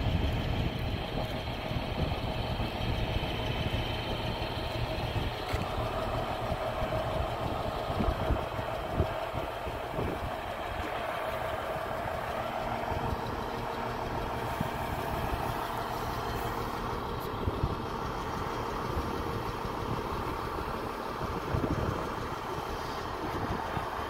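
Diesel engine of a semi truck running steadily while its end-dump trailer is raised, tipping out a load of cattle feed, with a few sharp knocks about eight to ten seconds in.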